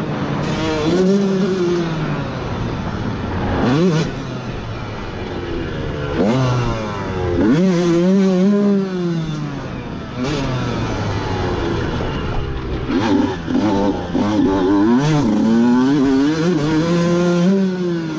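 Dirt bike engine heard from an on-board camera, its pitch climbing and dropping again and again as the rider accelerates, shifts and backs off around a motocross track, with wind rushing over the microphone.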